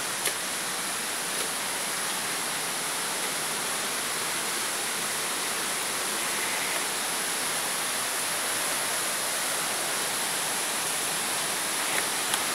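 Steady rush of water running through a rocky gorge, with a sharp click just after the start and two more near the end.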